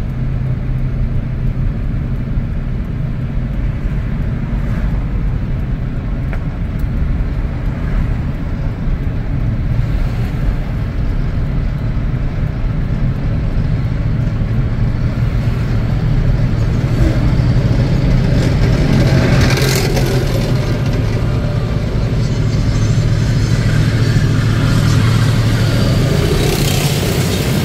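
Steady engine and tyre noise of a car driving along a highway, with the heavier noise of military armoured vehicles being overtaken. It swells about two-thirds of the way through and again near the end.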